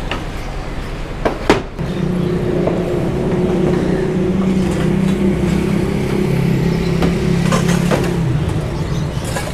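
A motor vehicle's engine running steadily close by, over street traffic noise, with two sharp clacks about a second and a half in.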